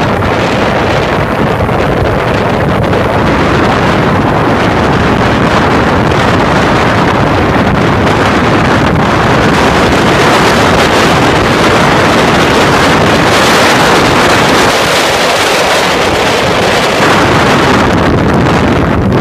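Steady, loud wind rushing over the microphone of a camera on a moving motorcycle, mixed with the running noise of the motorcycle riding along the track.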